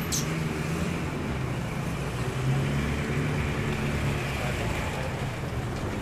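Steady low rumble of a motor vehicle and street traffic, with a wavering low hum.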